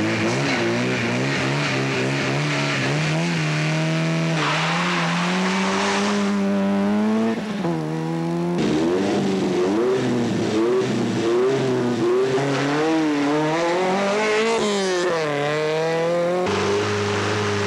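Rally car engines revving hard and accelerating away. The pitch climbs and drops back at each gear change, again and again. Near the end a different engine holds a steadier note.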